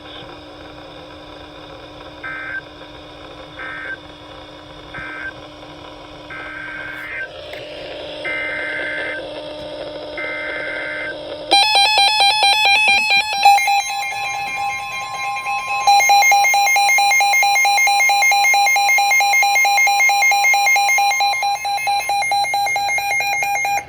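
Emergency Alert System tones: six short warbling bursts of digital SAME header code, then from about halfway a loud, steady two-tone alert signal. The alert tone pulses briefly at first, then holds for about ten seconds.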